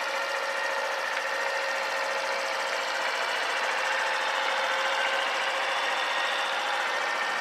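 Honda Super Cub 50 Pro's small air-cooled single-cylinder four-stroke engine idling steadily with a fast, even, sewing-machine-like patter.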